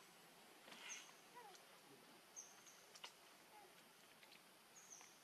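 Near silence: faint outdoor ambience with a few short, high chirps scattered through it and a couple of soft clicks.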